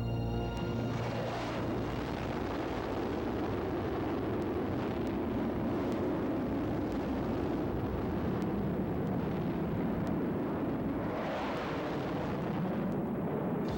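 Airplane engine roar from a flying display, steady, swelling brighter twice, about a second in and again near the end as the aircraft passes.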